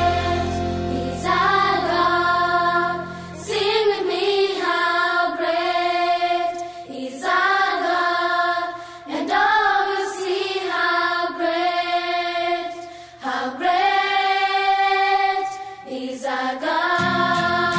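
Music with several voices singing long held phrases. The low accompaniment drops out a few seconds in and comes back near the end.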